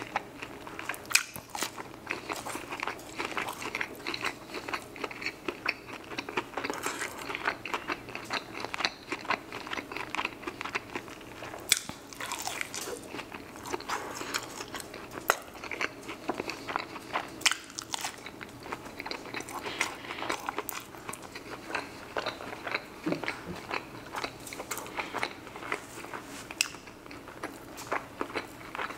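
Close-miked eating: biting into and chewing sauced fried chicken wings, a dense run of short crunches and mouth clicks.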